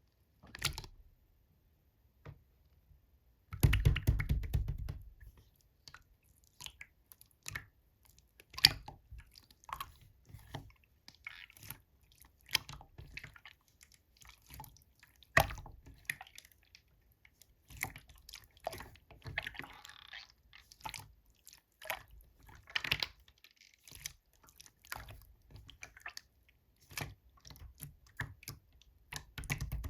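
Slime being squeezed, stretched and folded by hand, with irregular wet clicks and pops. There are louder bursts of squishing about four seconds in and again at the end.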